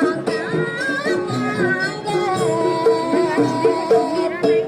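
Indonesian traditional dance music for a Garuda or jaranan dance: a quick repeating figure of low notes under a higher melody that slides between pitches.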